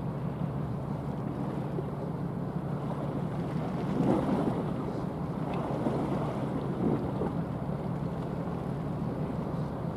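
Low steady drone of a passing cement carrier under way, with wind noise on the microphone and louder rushes about four and seven seconds in.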